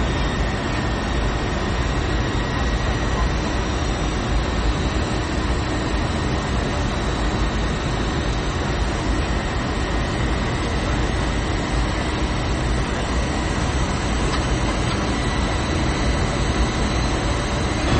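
Steady rushing drone of a jet airliner heard from inside the passenger cabin, even and unchanging, with a faint thin high tone running through it.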